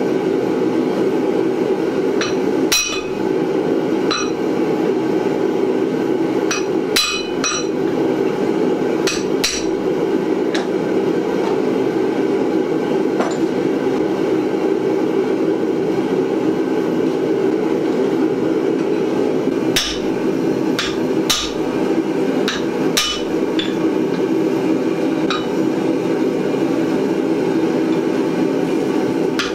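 Gas forge burner running with a steady, even roar. Over it, a hammer strikes a hot square steel bar on an anvil with sharp, ringing blows that come in scattered groups, not a steady rhythm.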